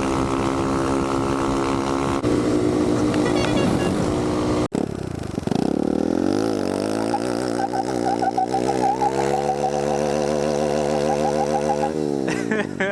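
Kawasaki Z125 Pro's small single-cylinder engine running under way, heard from the rider's seat. Its pitch holds steady, shifts about two seconds in, then after a sudden cut dips, wavers and climbs as the bike pulls, and falls away near the end.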